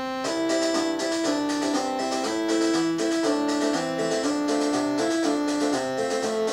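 Background music: a bright keyboard melody, harpsichord-like, played in quick, even notes.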